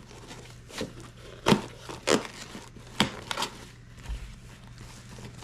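A package being opened by hand: packaging rustling and tearing, with several short, sharp crackles.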